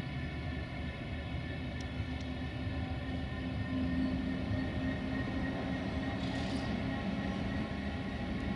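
Duewag BR628 diesel multiple unit's engine running steadily, with a short hiss about six seconds in.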